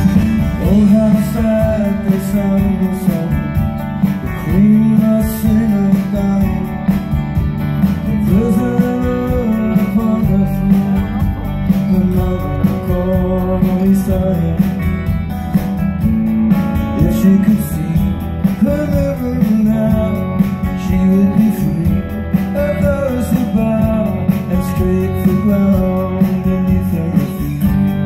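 Live rock band playing a song, with guitars and drums, recorded from the audience in a concert hall.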